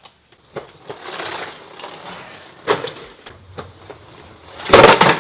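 Dry instant ramen being handled: packets rustling, clicks and knocks, and a loud crunch near the end as a block of dry noodles is crushed.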